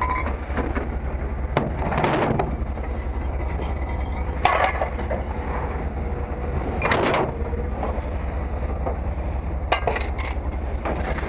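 A handful of sharp knocks and clatters, five or so spread out, over a steady low rumble.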